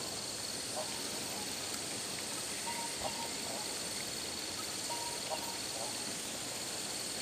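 Insects chirring steadily in a thin high tone over a soft outdoor hiss, with a faint short sound recurring about every two seconds.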